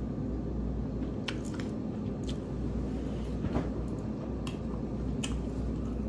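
Quiet room tone: a steady low hum with about five faint, sharp clicks spread through it.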